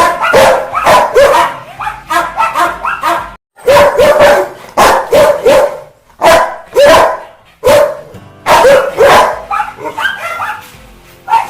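Rottweiler barking angrily in fast volleys, several barks a second, with two brief silent breaks.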